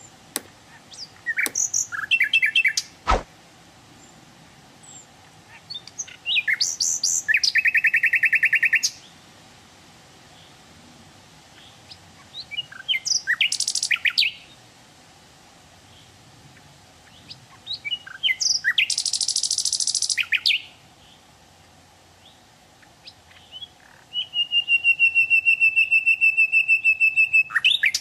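Common nightingale singing: five phrases a few seconds apart, each a quick mix of whistles and chirps running into fast trills of repeated notes. The last phrase is a long run of one rapid repeated whistled note on a single pitch. A single sharp click sounds about three seconds in.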